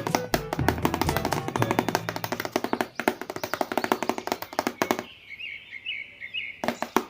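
Music with a fast tapping, clicking percussion beat; about five seconds in the tapping drops out briefly, leaving a short run of high chirping notes, before the taps return near the end.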